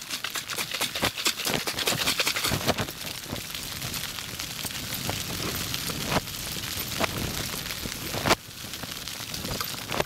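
Rattling and crackling as a white plastic container of dry bait is handled, shaken and opened, over a steady rustling hiss, with a sharp knock about eight seconds in.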